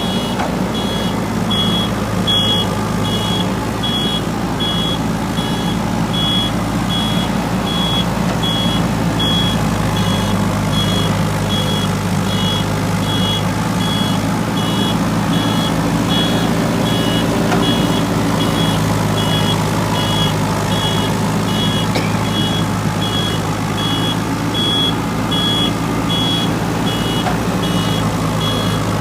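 A JCB 3DX backhoe loader's diesel engine runs steadily while its electronic warning alarm beeps in two pitches, about twice a second.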